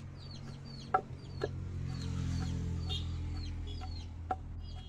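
Wooden pestle pounding steamed palm nuts in a wooden mortar: several thuds at uneven intervals. Many short, high bird chirps sound throughout.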